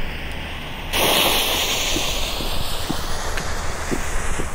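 The fuse of a firework battery (a Lesli Three Stage Trouble) is lit: a sudden hiss starts about a second in and keeps going, with light crackling as the fuse burns down.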